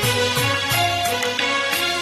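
Instrumental interlude of a Bollywood film song's karaoke backing track: melodic instruments over a steady percussive beat, with no singing.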